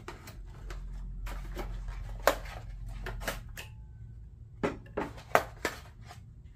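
Cardboard packaging and parts being handled as a horn kit is unpacked: a run of sharp clicks, knocks and rustles, the loudest about two seconds in and a quick cluster near the five-second mark, over a steady low hum.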